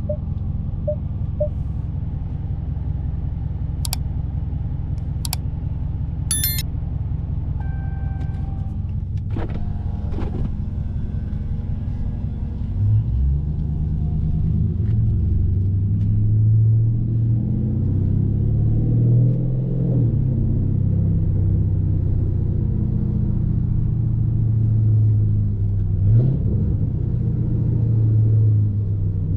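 2020 Dodge Challenger Scat Pack's 6.4-litre HEMI V8 idling with a steady low rumble, with a few sharp clicks and a short tone, then about thirteen seconds in pulling away. It keeps running under throttle, its pitch rising and falling as it accelerates and shifts.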